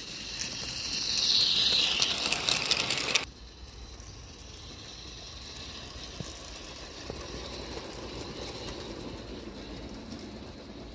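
A small live-steam garden-railway locomotive running up close, hissing with rapid exhaust beats and clatter that swell for about three seconds and then cut off abruptly. After that, a train runs more faintly over the track with an occasional light click.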